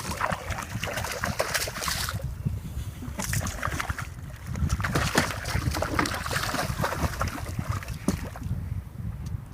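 Water splashing and sloshing against a kayak in uneven bursts, over a low rumble.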